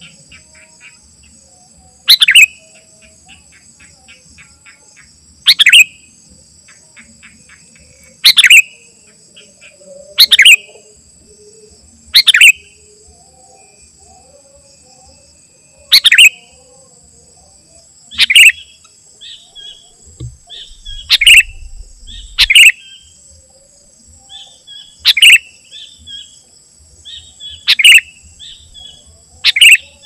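Sooty-headed bulbul (kutilang) giving loud, short, sharp calls every two to three seconds, with softer chirps between them in the second half. A steady high insect drone runs underneath.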